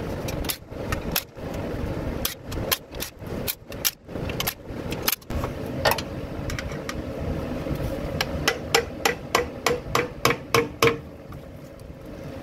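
Repeated metal strikes of a hammer on a screwdriver wedged into the sealant seam between a Toyota 2AR-FE engine's stamped steel oil pan and the block, breaking the pan loose from its glue. The taps come in an uneven flurry, then an even run of about three to four a second, each with a short ring from the pan.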